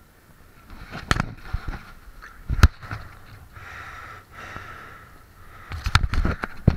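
Waterproof roll-top dry bag being handled and opened: its stiff fabric rustling and crinkling, with sharp clicks and knocks, the loudest about two and a half seconds in and a cluster near the end.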